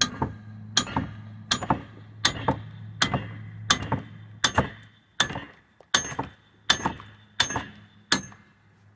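Twelve evenly spaced metal-on-metal blows, about one every three-quarters of a second, each ringing briefly. A stuck leaf-suspension part of a semi truck is being knocked loose. A steady low hum runs underneath.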